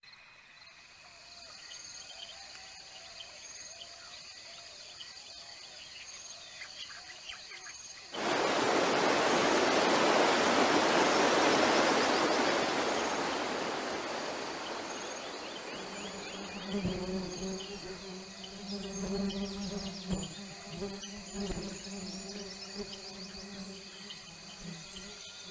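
Insects chirping and buzzing in a steady chorus. About eight seconds in, the loud rush of a river pouring over rapids cuts in and slowly fades. It gives way to a low steady drone with a few deep thumps under the insects.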